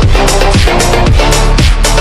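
Electronic dance music with a steady four-on-the-floor kick, falling bass sweeps about twice a second and a short repeating synth riff.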